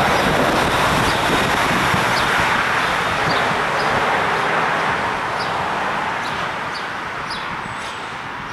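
Outdoor street ambience: a steady rush of noise that eases off over the second half, with a small bird chirping briefly again and again.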